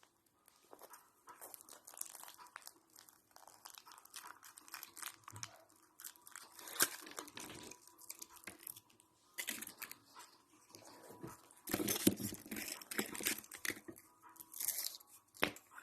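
Crinkling and tearing of a Wonka surprise egg's wrapper being opened by hand, in irregular crackling handfuls with sharper rips, loudest in a run a little past the middle.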